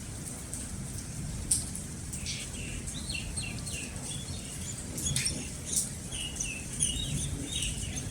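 Steady rain with scattered drop clicks, while a bird chirps in short repeated notes from about two seconds in.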